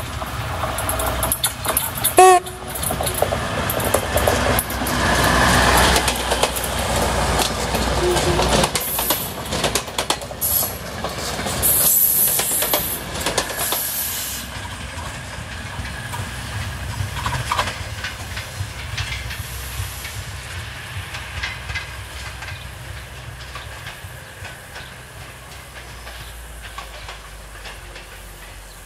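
Class 614 diesel-hydraulic railcar giving a short horn blast about two seconds in. It then passes close with its engine running and its wheels clicking over the rail joints. It fades steadily as it pulls away.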